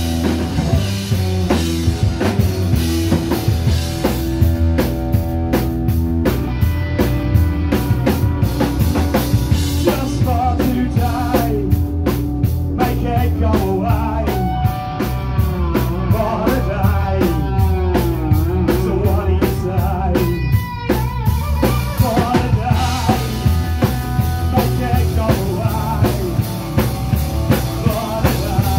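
Live rock band playing through a pub PA: drum kit, electric guitars and bass in a steady loud groove. In the middle stretch a wavering lead line bends up and down in pitch over the band.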